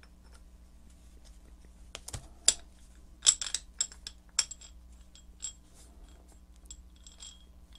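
Scattered light metallic clicks and clinks from the steel drive wheel and pinion gear of a vintage Venusburg eggbeater hand drill being fitted together and turned by hand, the gear teeth meeting and meshing. The clicks bunch up about three to four and a half seconds in.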